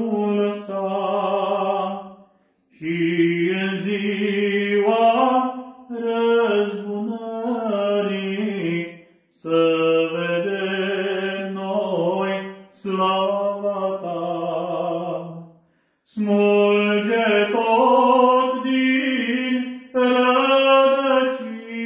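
A man's solo voice singing a slow Romanian Orthodox religious song with no accompaniment. He holds long notes in phrases separated by short breaks.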